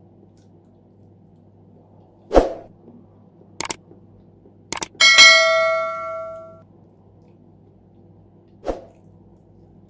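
A few sharp knocks, then about halfway through a hard object is struck once and rings out with a clear, bell-like clang of several tones that fades over about a second and a half; a single knock follows near the end.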